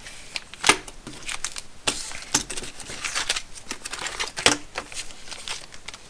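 Small steel bolts and nuts clicking and clinking against one another and the surface as they are sorted by hand, with some rustling; three sharper clinks stand out, about a second in, about halfway, and near the end.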